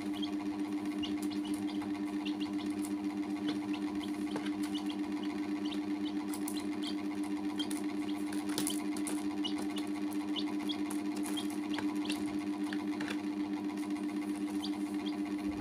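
Young chicks peeping in short, high cheeps that fall in pitch, scattered throughout, over a louder steady mechanical hum that pulses rapidly.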